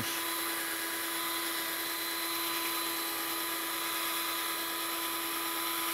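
Household electric drill spinning a sanding pad against a plastic headlight lens, running at a steady whine with an even hum as it sands off the hazed, yellowed surface.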